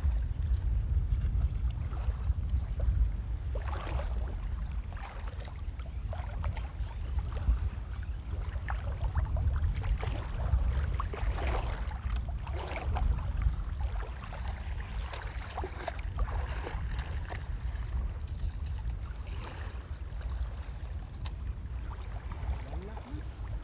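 Wind buffeting the microphone with a steady low rumble, over light sloshing and splashing of feet wading through shallow seawater.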